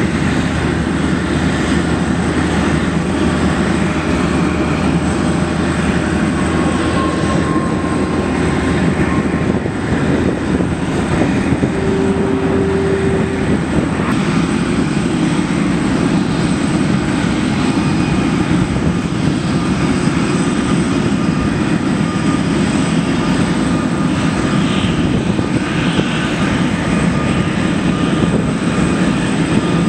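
Loud, steady jet-engine noise from an Airbus A330-200 powered by GE CF6-80 engines, heard during pushback by a tow tug. A brief steady tone sounds about twelve seconds in.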